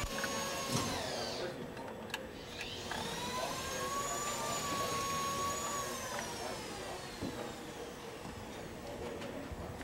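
Power drill motor whining as it drills into the car's floor, its pitch rising about three seconds in, holding, then slowly falling as it slows, with a few sharp clicks.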